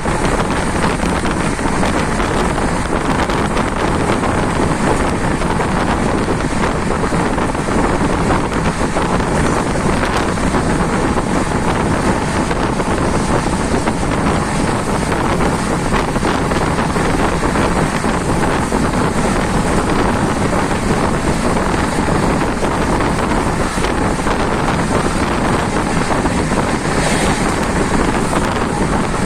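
Passenger train running at speed: a steady rush of wind and rumble, with wind buffeting the microphone.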